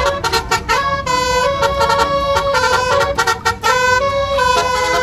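Indonesian bus 'telolet' musical horn playing a tune, its notes stepping up and down in pitch, over a low rumble of traffic.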